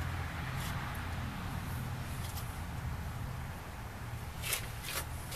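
Two short clicks about four and a half and five seconds in as the broadfork's wooden handle and steel tine frame are handled and fitted together for bolting, over a steady low background hum.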